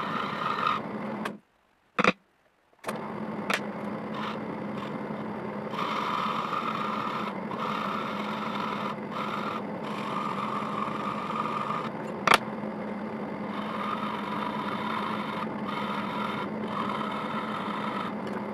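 Drill press motor running steadily, spinning a wooden workpiece as a makeshift lathe, while a hand tool held against the turning wood scrapes it. The scraping comes and goes as the tool touches and lifts. The sound cuts out briefly about a second and a half in, with a click, and a single sharp click comes about twelve seconds in.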